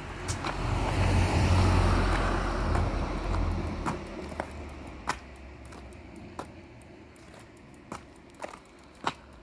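A car passes by, rising to its loudest about a second and a half in and fading away over the next few seconds, with a low rumble under the tyre noise. Footsteps tap on the pavement at intervals.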